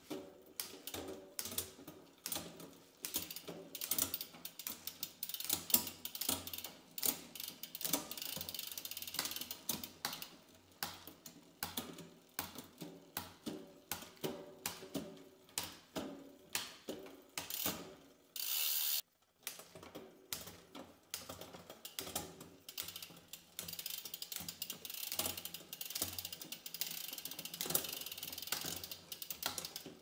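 SRAM Eagle 1x12 drivetrain turned on a repair stand: the chain runs over the spinning cassette and rear derailleur pulleys, with a steady stream of clicks and rattles as it shifts across the sprockets. The drivetrain has just been set up again after a worn chain and a bent derailleur hanger.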